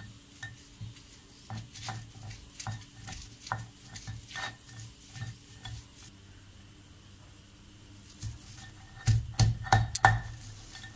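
Stone roller being rolled back and forth on a stone ammi grinding slab, crushing grated coconut with roasted urad dal and dried red chillies into a coarse thogaiyal: rough stone-on-stone grinding in repeated strokes, with a run of louder knocks about nine seconds in.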